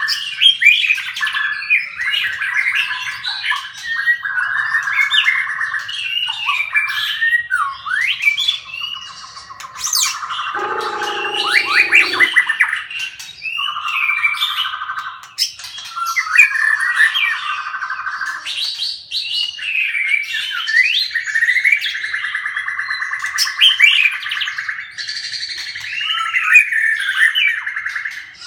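Birds chirping and squawking non-stop in rapid, overlapping calls. A brief lower-pitched sound comes about eleven seconds in.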